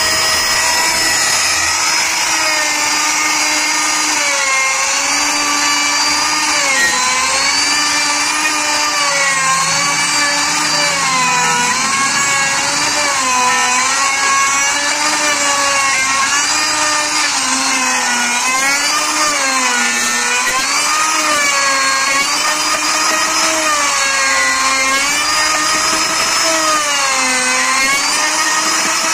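Electric plunge router running at full speed with its bit cutting into a timber beam to bore a hole. The steady high motor whine keeps dipping and recovering in pitch as the bit takes load in the wood.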